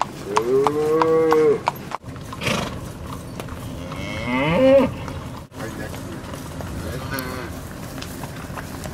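Black Angus cows mooing: a long moo about half a second in, then a louder moo that falls in pitch around four seconds in, with a fainter one near the end.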